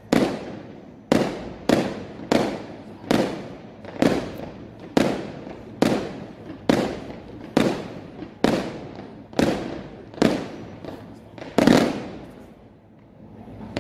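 Aerial fireworks display: shells bursting in quick succession, a sharp bang roughly every three-quarters of a second, each trailing off in an echo. The loudest bang comes near the end, followed by a brief lull.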